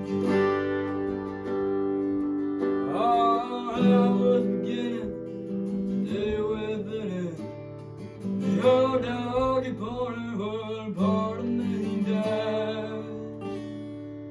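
Acoustic guitar strumming chords under a lead melody whose notes slide and bend, an instrumental break in a country song.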